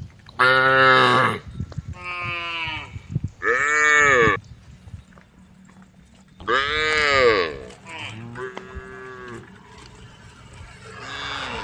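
Cows mooing, calling to the herd: about six long calls one after another, at differing pitches, the loudest near the start and about six and a half seconds in.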